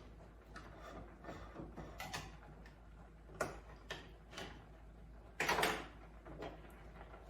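Light, scattered kitchen clicks and knocks from handling a can of evaporated milk over a pot of boiled potatoes, with one louder clatter lasting about half a second around five and a half seconds in.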